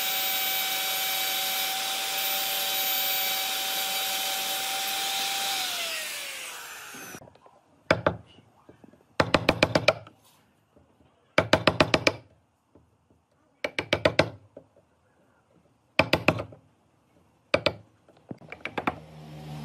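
Electric plunge router running with a steady whine, then switched off and spinning down, its pitch falling, about six seconds in. Then a wood chisel is driven into pine by a mallet in seven quick clusters of sharp knocks, each cluster several rapid strikes, chopping out a cross-lap joint.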